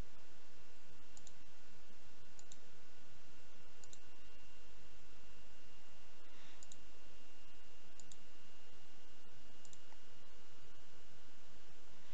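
Computer mouse buttons clicking about six times, several as quick double clicks, over a steady background hiss with a faint steady high whine.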